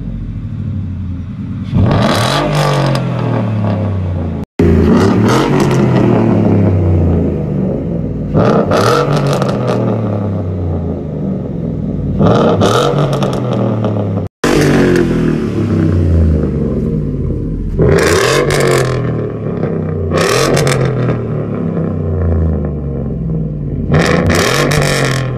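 2015 Ford F-150's 5.0 L V8 with catless dual exhaust being revved repeatedly from idle: about eight sharp blips, each jumping loud and then sinking back to a rumbling idle.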